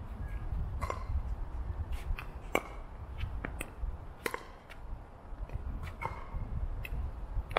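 Pickleball paddles striking the plastic ball: sharp pops at irregular intervals, some loud and some faint, over a steady low rumble.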